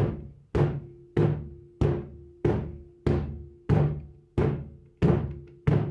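Steel pan case slapped with the hands as a drum, giving a deep booming beat: ten evenly spaced strokes, about one every 0.6 s, each dying away before the next. This is the steady pulse pattern of a steel band's percussion section. A faint ringing tone hangs between the strokes.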